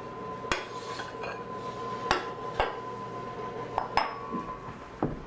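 Oven rack and a white baking dish clinking and knocking as a casserole is lifted out of a wall oven: about five sharp clinks, spread over a few seconds.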